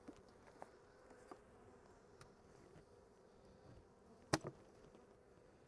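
Honeybees around an open hive buzzing in a faint, steady hum. A single sharp knock about four seconds in stands out above it.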